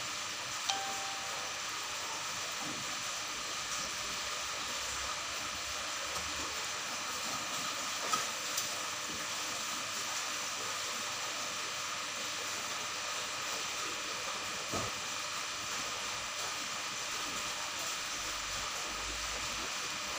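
Steady hiss of an aquarium filter running and water circulating, with a few faint clicks.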